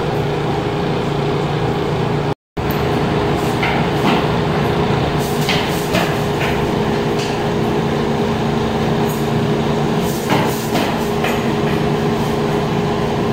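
Steady hum and hiss of a room air conditioner, cut by a brief dropout near the start, with a few light knocks scattered through the middle.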